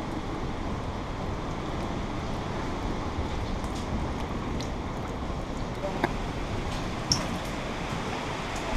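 Steady rush of heavy rain on a cabin's roof and windows, heard from inside, with a couple of light clicks about six and seven seconds in.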